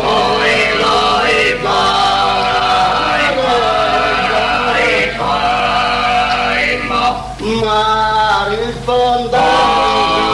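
Sardinian canto a tenore: a small group of men singing unaccompanied, a lead voice moving over a sustained low drone from the guttural bass voices. The singing comes in phrases with brief breaks between them.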